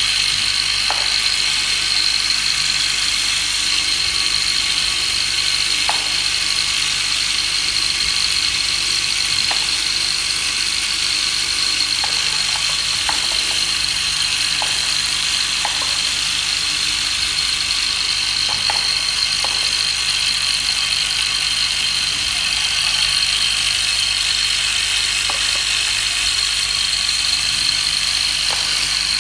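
Vibratory bowl feeder and linear track running: a steady mechanical buzz with a continuous metallic rattle as the metal parts are shaken along the stainless-steel track, with a few faint clicks.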